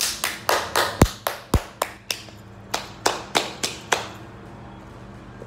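Hands clapping and slapping restlessly: an uneven run of about fifteen sharp claps and smacks, two of them with a deeper thud about a second in, stopping about four seconds in.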